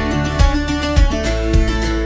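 Background music: an instrumental passage of a Hindi song, with a steady beat of roughly two strokes a second.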